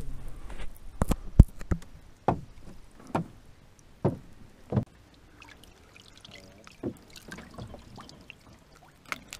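Scattered knocks and clunks of fishing gear being handled in a small fishing boat: a quick cluster in the first couple of seconds, then single knocks about a second apart, dying away toward the end.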